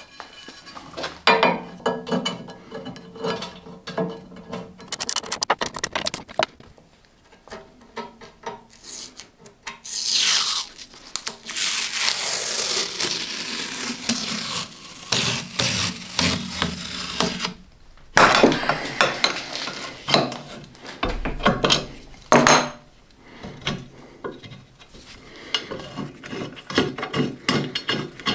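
Hand work on cast-iron machine parts: scattered metal clinks and knocks as parts and tools are handled, with a long stretch of steady scraping or rubbing in the middle.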